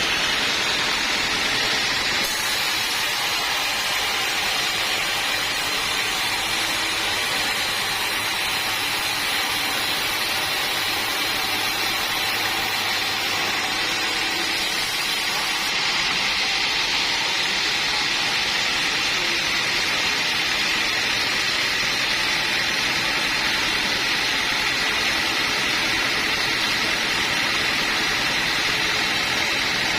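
Sawmill machinery running steadily as a loud, even mechanical noise, with a higher hiss coming in about two seconds in and dropping away about halfway through.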